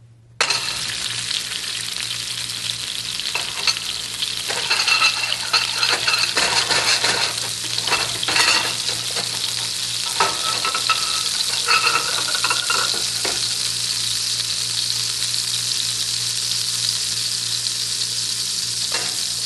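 Frying sizzle in a hot stainless steel skillet that starts suddenly about half a second in and keeps going steadily. Between about 3 and 13 seconds it is broken by scattered knocks and scrapes as the stones and a spatula move against the pan.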